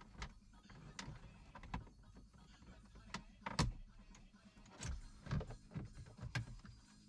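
Plastic dashboard trim of a VW T6 being prised off by hand around the standard head unit: retaining clips and panel edges give a series of irregular clicks and knocks, the loudest about three and a half seconds in.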